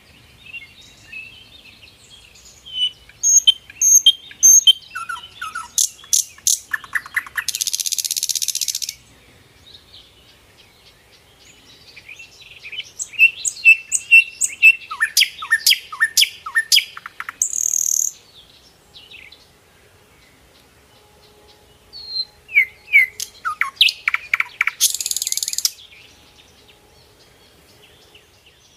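Small birds chirping in bouts of quick, high notes, a bout roughly every ten seconds, each ending in a short hiss-like burst.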